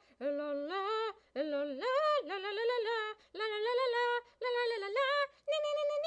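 A single voice, probably a woman's, singing a wordless melody a capella in a series of short phrases of held notes with small breaks between them.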